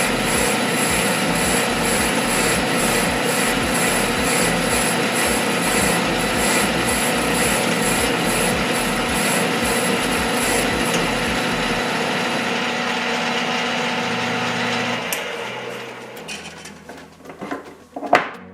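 Metal lathe running while a parting or grooving tool cuts brass bushing stock, a steady scraping cut over a low rhythmic pulse of about two to three beats a second. About 15 s in it dies away, and a short sharp knock follows near the end.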